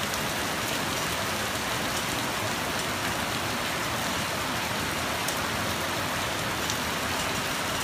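Rain pouring down steadily, an even hiss of drops with no thunder.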